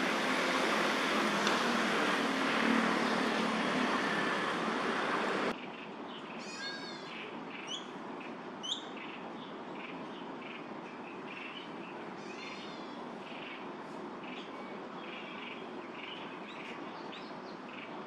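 A loud, steady rushing noise for the first five seconds or so, which cuts off abruptly. It gives way to quieter outdoor ambience with scattered short bird chirps and a few louder, sharper bird calls.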